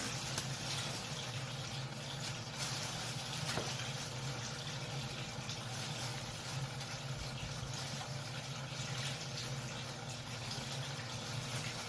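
Water running and splashing steadily, over a low steady hum.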